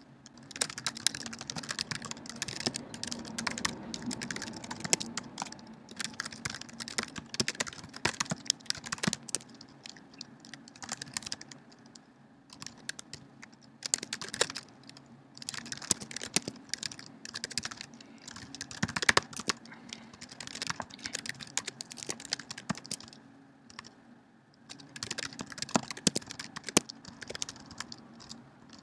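Typing on a computer keyboard: quick runs of key clicks in bursts, broken by several short pauses.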